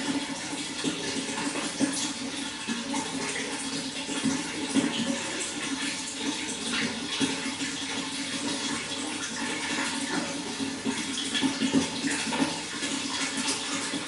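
Water flowing steadily, a continuous even rush with small splashes throughout.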